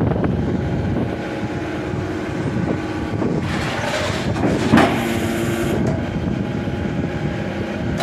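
YD1600A hydraulic scrap metal baler running, its hydraulic pump unit humming steadily as a cylinder swings the press lid down. A louder, noisy stretch of about two seconds comes midway through, peaking sharply about five seconds in as the lid meets its load.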